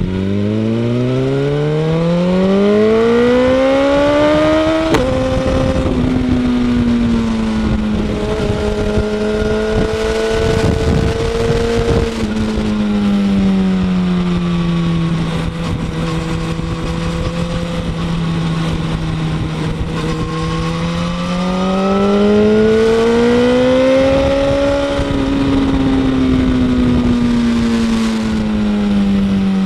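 BMW S1000RR inline-four engine through a Pro-Race aftermarket end can, recorded from under the tail. The revs climb hard for about five seconds and drop suddenly at an upshift, then hold fairly steady and sag slowly. A second pull comes around twenty seconds in, followed by a gradual ease-off.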